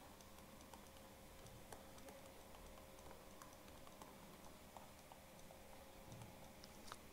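Near silence: faint, scattered light clicks and taps of a stylus writing on a tablet, over a faint steady hum.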